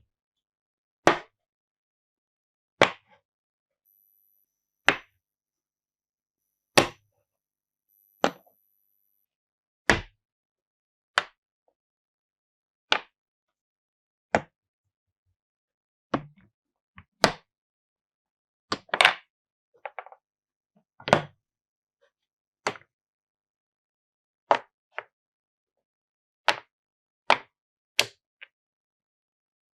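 Hard, sharp wooden clacks from a Cuboro wooden-block marble run, glass marbles knocking against the wooden pieces. They come one at a time every second or two, with a few quick doubles, and there is silence between them.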